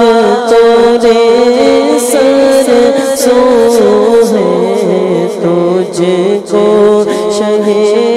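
A male reciter singing a munajat (devotional supplication) unaccompanied, in a slow, ornamented melody with long held notes that dips lower about halfway through.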